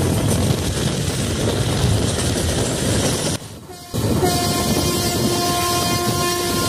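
Running noise of a moving passenger train heard from its open door: wheels on rails and rushing air. After a brief drop in level about halfway, a train horn sounds one long, steady blast that carries on to the end.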